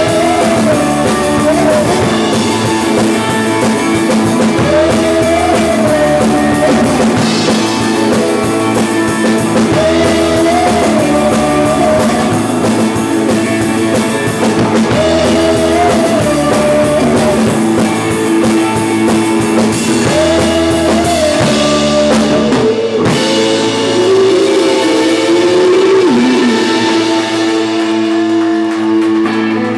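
Small indie rock band playing live: two electric guitars over a drum kit, with a wavering melody line on top. About three-quarters of the way through the deep bass drops away while the guitars play on.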